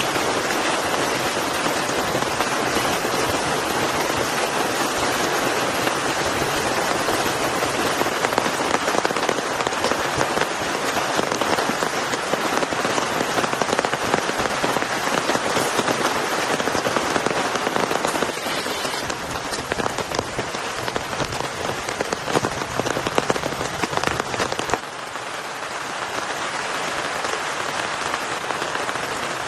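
Heavy rain falling steadily, a dense hiss of countless drop impacts. It grows a little quieter about two-thirds of the way through and again a few seconds before the end.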